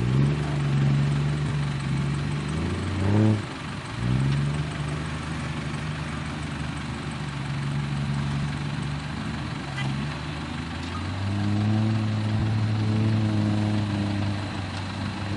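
Off-road 4x4 engine running under load and revving: the pitch climbs sharply about three seconds in, falls back, and from about eleven seconds settles into a lower, louder steady pull.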